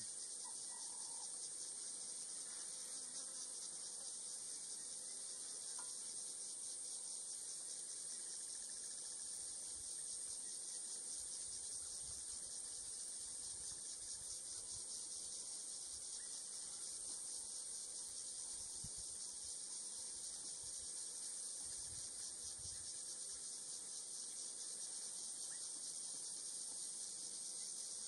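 Steady, high-pitched chorus of insects in the African bush, a dense buzzing trill that does not change.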